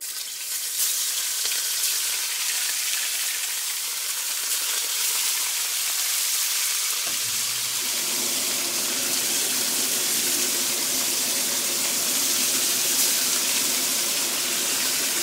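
Pork pieces sizzling hard in smoking-hot peanut oil in a Lodge cast iron wok. The sizzle starts suddenly as the meat goes in and then holds steady. A low steady hum joins in about seven seconds in.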